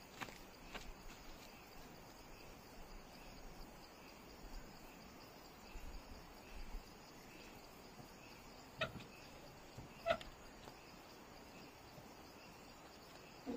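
Quiet outdoor ambience with faint, regularly repeating insect chirping, broken by two short, sharp calls or knocks about nine and ten seconds in.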